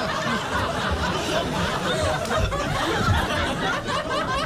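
A studio audience and panel laughing and chattering over one another, with no single voice standing out.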